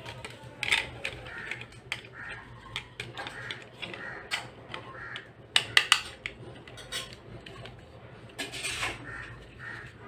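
A small plastic radio remote-control receiver module and its wires being handled: irregular clicks, taps and light rattles of plastic. The sharpest clicks come a little under a second in and again around six seconds in.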